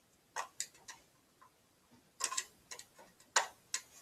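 Small sharp plastic clicks and taps, about eight in uneven groups, as a battery pack is handled and slid into the battery slot on the back of a camcorder.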